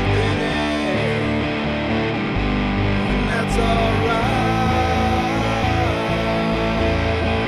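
Rock band music with a wavering lead line over a steady bass line.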